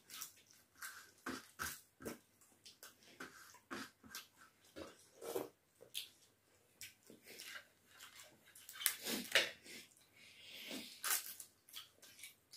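Two people eating by hand: wet squelching as rice and dal are mixed with the fingers on steel plates, and chewing with crisp crunches of papad. The sounds come in quick irregular clicks and bursts, busiest about nine seconds in.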